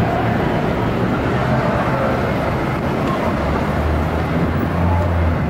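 Downtown street traffic running past, with a heavy engine rumble swelling about three and a half seconds in as a large vehicle goes by.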